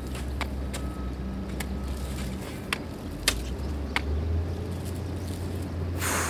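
Pick and shovel striking dry, stony earth: a handful of sharp, irregular hits over a steady low hum, with a short burst of hiss near the end.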